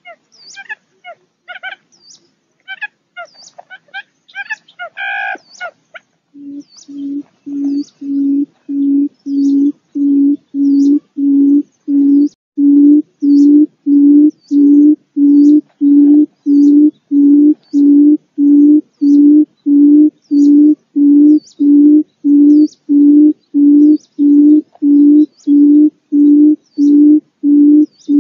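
Quail calling: one short, low hooting note repeated about every 0.7 s in a long, even series that starts about six seconds in and grows louder over its first few seconds. Before it, scattered high chirps.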